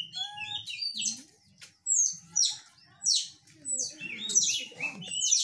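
Repeated high, thin chirping calls, each falling steeply in pitch, coming in quick runs of several with short gaps between.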